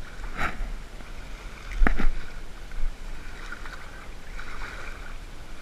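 Wind rumbling on a hat-mounted microphone, with a few sharp clicks from handling a metal spoon lure while unhooking a small barracuda; the loudest click comes a little under two seconds in.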